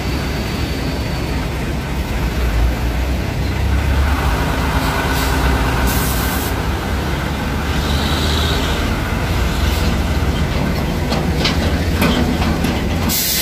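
Heavy diesel truck traffic: a steady low engine rumble, with short bursts of hiss about six seconds in and again near the end.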